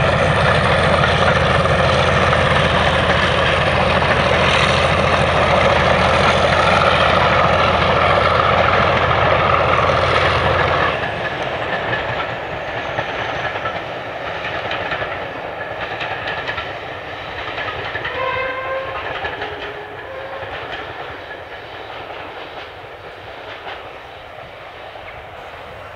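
Diesel locomotive hauling passenger coaches past: loud engine and rolling noise for about eleven seconds, then a sudden drop and a steady fade as the train moves away. A few brief tones sound faintly about eighteen seconds in.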